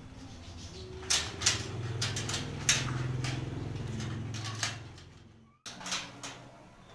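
Clicks and rattles from a padlock and the latch of a welded-wire steel gate being worked by hand: a series of sharp clicks, with a low steady hum underneath that fades away. The sound cuts off abruptly, then a few more clicks follow.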